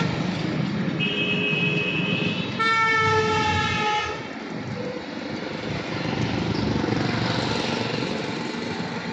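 Horns blowing over a steady rumble of traffic: a low horn held at the start, a higher horn note from about a second in, then the low horn again for about a second and a half from a little under three seconds in. After that a rushing vehicle noise swells and fades near the end.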